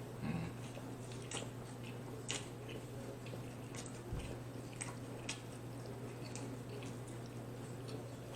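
A person biting and chewing steak tacos close to the microphone: scattered wet clicks and smacks of the mouth, over a steady low hum.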